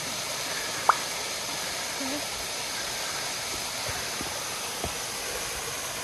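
Steady rushing of flowing water, with one sharp click about a second in and a few faint knocks.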